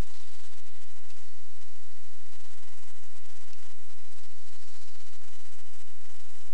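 Steady hiss with a low hum and a thin steady high tone underneath: the recording's background noise, with no speech.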